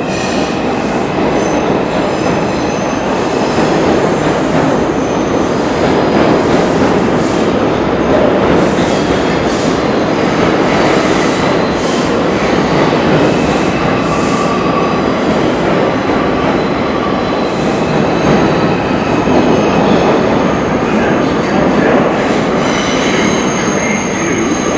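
An R142 subway train pulling out along the platform, with a steady rumble of steel wheels on rail, repeated clicks over the rail joints and thin wheel squeals coming and going. The clicking fades after the last cars clear the station, and a few steady high tones ring on near the end.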